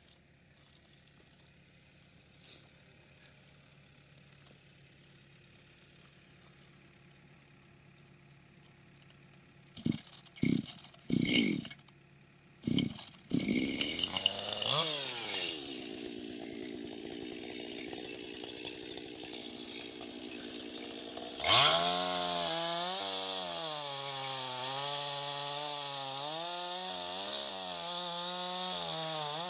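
Two-stroke chainsaw being started: a few short pull-start bursts, then the engine catches and idles. It then revs up to full speed and runs on, its pitch wavering up and down.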